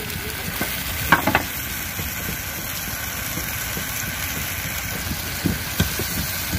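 Onions and spice paste sizzling as they fry in a curry pot, a steady hiss. A few knocks of the stirring spoon against the pot about a second in and again near the end.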